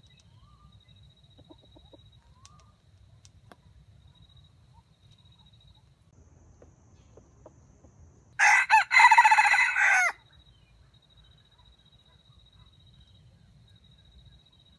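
A rooster crowing once, about eight seconds in: a single loud crow of under two seconds, broken into a short opening note and a longer drawn-out call.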